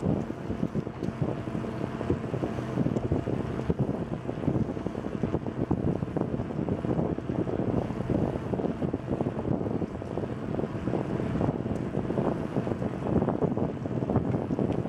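Wind buffeting the microphone of a camera on a moving bicycle, a steady rushing rumble with constant small rattles and bumps from riding over the trail surface.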